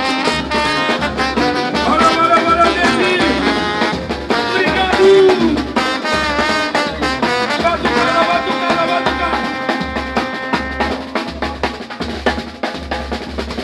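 Live samba band playing, with a steady low surdo drum pulse under percussion and a melodic line from the cavaquinho.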